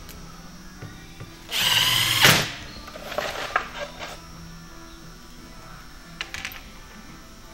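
Makita 18-volt cordless driver running for about a second as it drives a 3/4-inch tek screw into the form's plastic rail, with a ringing whine in the burst. Light clicks of handling follow, with a few more near the end.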